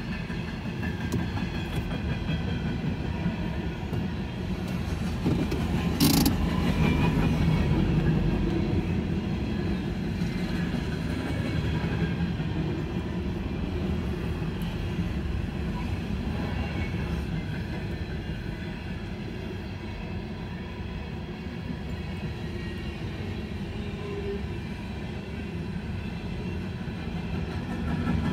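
Norfolk Southern freight cars rolling past, their steel wheels clattering steadily over the rail joints. A single sharp clank comes about six seconds in. It is heard from inside a car.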